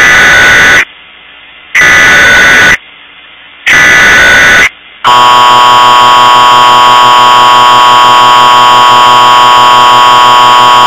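Emergency Alert System alert tones: three one-second bursts of screeching SAME header data tones, each about a second apart, then from about five seconds in the steady, harsh two-tone EAS attention signal, played very loud.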